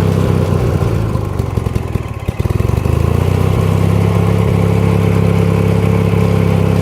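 Ford YT16 riding mower engine running on full choke, stumbling briefly about two seconds in and then settling back to steady running. It will only run with the choke wide open, which the owner puts down to a carburetor that needs cleaning after years of sitting.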